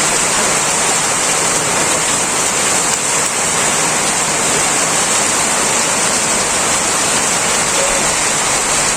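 Heavy downpour of rain, a loud, steady hiss of pouring water that does not let up.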